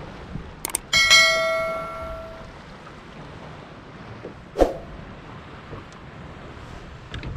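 A sharp metallic clang about a second in that rings on and fades over about a second and a half, with a duller knock a few seconds later, over steady wind noise on the microphone.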